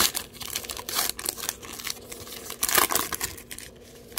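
Baseball card pack wrapper crinkling and tearing as the pack is pulled open, a run of sharp crackles that is loudest a little under three seconds in and dies away near the end.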